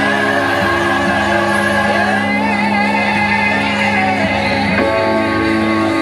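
Live electronic band music played loud through a venue PA: sustained keyboard chords over a steady bass, with a wavering high melody line midway and a chord change about five seconds in.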